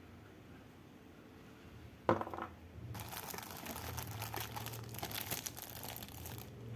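A sharp knock about two seconds in, then about three and a half seconds of crinkling plastic packaging being handled, typical of unboxing a model kit's bagged parts.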